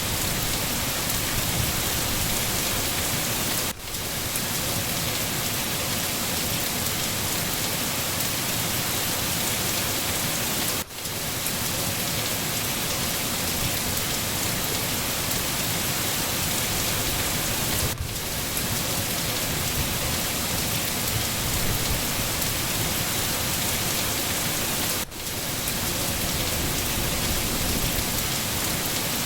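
Steady, dense rainfall with no breaks in the hiss. The level dips briefly about every seven seconds.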